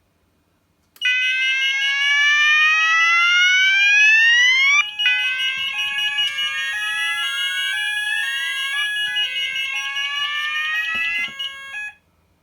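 Fire alarm sounding after an optical smoke detector was triggered with smoke spray. A Banshee XL sounder set to the Australian evacuation tone plays repeated rising sweeps, the first long and the rest shorter, over a steady high tone and a lower tone pulsing on and off about twice a second. It starts about a second in and cuts off suddenly near the end.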